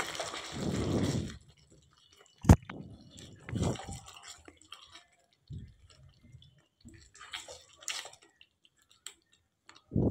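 A silicone spatula stirs chicken pieces through thick curry gravy in a nonstick kadai, making short bouts of wet squelching and scraping. A single sharp knock comes about two and a half seconds in.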